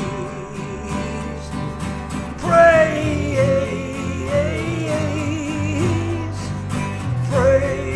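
Gospel-country band playing, with guitar over a steady low bass. A voice holds a long, wavering sung note from about two and a half seconds in, and starts another near the end.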